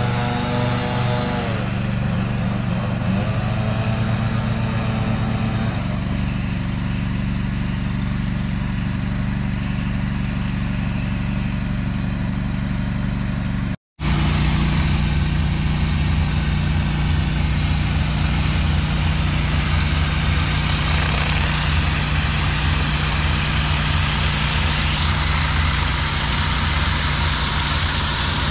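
Pressure washer running steadily: an engine drone under the hiss of high-pressure water on concrete. After a brief cut about halfway, the hiss is stronger as a rotary surface cleaner is pushed across the driveway.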